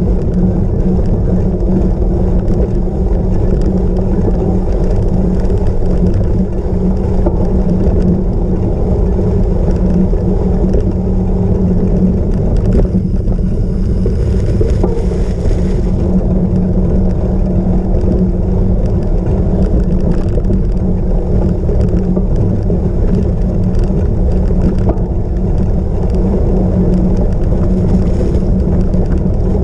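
Steady, loud rumble of a cyclocross bike being ridden over rough ground, mixed with wind on the microphone. A brief higher hiss joins in about halfway through.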